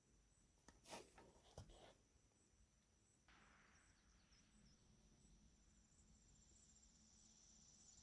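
Near silence: faint outdoor ambience with a thin, steady high insect trill and a few soft clicks about one to two seconds in.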